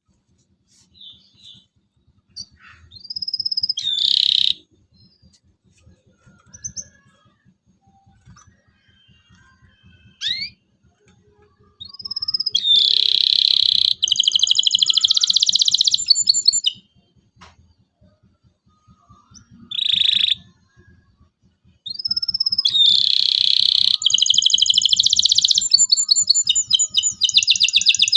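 Local canary singing vigorously: scattered short chirps and whistled notes, then two long phrases of fast trills, one starting about twelve seconds in and another about twenty-two seconds in.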